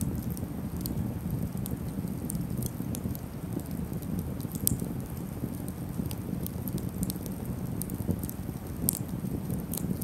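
Small open campfire of split wood burning: scattered sharp crackles and pops over a steady low rumble, with two louder snaps, one about halfway and one near the end.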